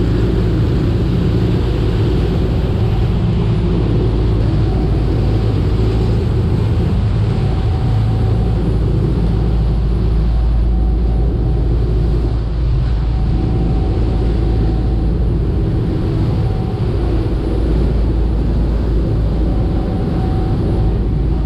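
A passenger tour boat's engines running steadily at cruising speed: a loud, even low drone with a rush of water from the wake over it.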